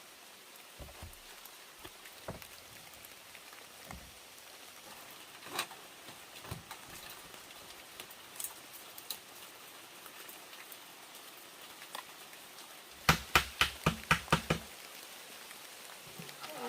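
Steady rain with scattered drips. Near the end comes a quick run of about eight sharp knocks, about five a second, lasting a second and a half.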